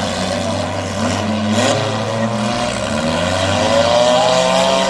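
Demolition derby car engines running and revving hard, with one engine's pitch rising over the last couple of seconds.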